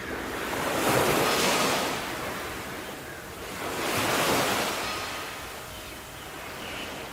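Sea waves washing in, the surf swelling and fading twice, about three seconds apart.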